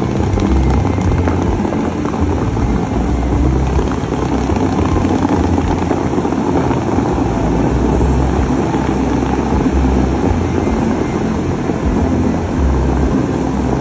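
The Dubai Fountain's water jets spraying high and crashing back into the lake: a loud, steady rushing with a low, uneven rumble beneath.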